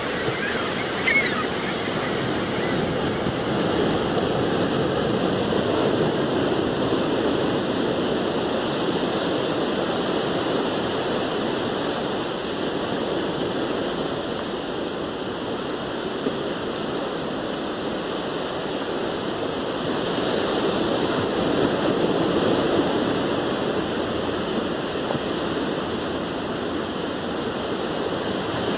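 Surf breaking on a beach, a steady wash that swells twice as bigger waves come in. A short seagull call comes about a second in.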